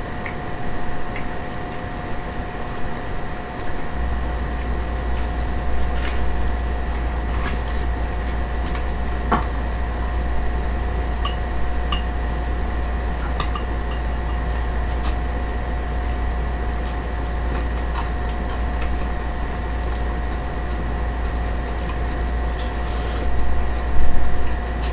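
Chopsticks clicking and clinking against a pan and dishes during a meal, as scattered light ticks. A steady low hum comes in about four seconds in, and a louder burst of noise follows just before the end.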